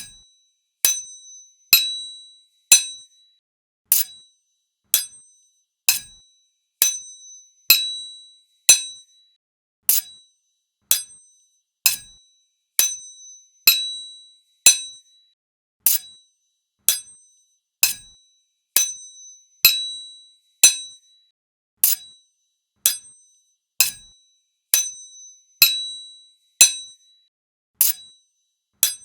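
Steel sword blades clashing, one sharp metallic strike about every second, each ringing briefly with a bright tone.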